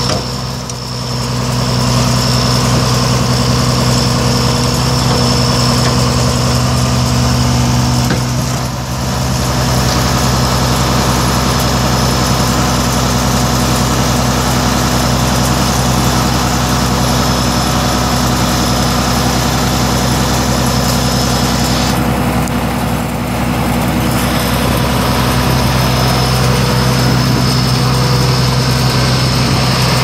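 The Cummins 5.9-litre inline-six diesel of a 2003 Blaw-Knox PF-5510 asphalt paver running at a steady speed. A steady high whine sits above the engine note.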